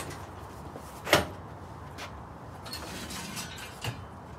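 A hard plastic tool case is set down onto a stack of Ridgid toolboxes with one sharp clunk about a second in, followed by a few lighter clicks and knocks.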